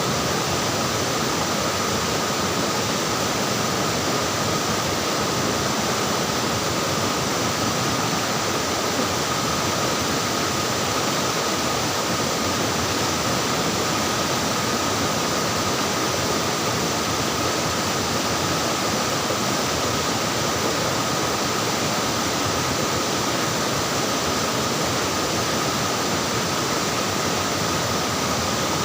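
Flowing water running steadily: an even, unbroken rush of water.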